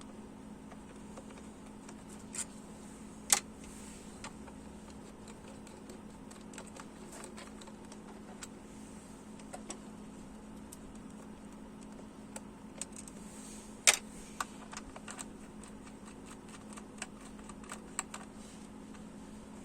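Scattered light clicks and taps of hand tools and parts being handled on a car engine, with two louder sharp clicks about three seconds in and near the middle, over a steady low hum.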